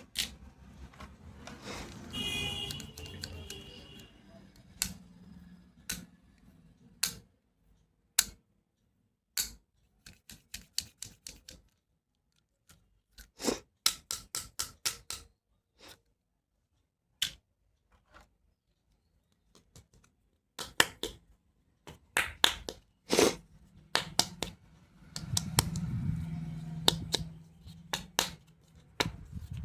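Plastic toy doctor-kit pieces being handled: a long series of sharp clicks and taps, some in quick runs of several a second, with soft rustling near the start and toward the end.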